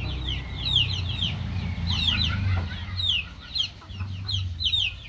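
Chickens calling: many short, high, falling peeps, several a second, over a steady low rumble.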